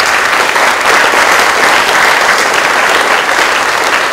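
Audience applauding: dense, steady clapping from a full hall.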